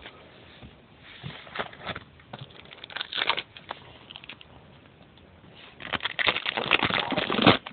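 Trading cards and their pack wrappers being handled: rustling and crackling, scattered at first, then a dense busy stretch near the end.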